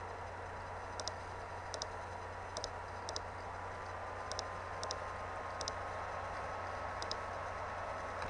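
Computer mouse button clicks, each a quick double click of press and release, about eight of them at irregular intervals, as wires are drawn in a schematic program. Under them runs a steady background hum and hiss.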